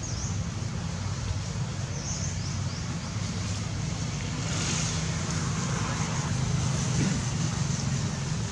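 Wind buffeting the microphone: a steady low rumble over an even outdoor hiss, with no distinct events.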